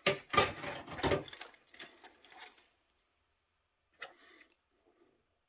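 Gloved hands handling a battery backup's wiring and transformer: a quick run of clicks and rustling of wires and plastic parts in the first couple of seconds, then a single short knock about four seconds in.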